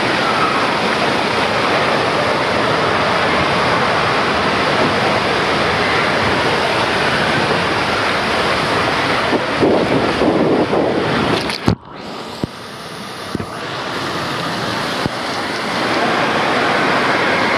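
Water rushing and spraying down an open body water slide as a rider slides through it, close on the camera. Near the end of the ride the splashing grows louder, then the sound cuts off suddenly and comes back duller and quieter, slowly building again to the steady rush of water in the runout lane.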